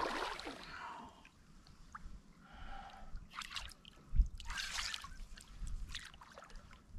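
Water splashing as a hooked bass thrashes at the surface near the kayak, several short splashes, with one sharp low thump about four seconds in.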